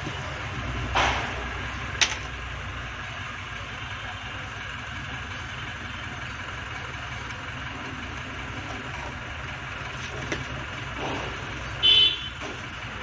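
Steady low hum of background road traffic with a few sharp clicks, and a short high-pitched toot near the end.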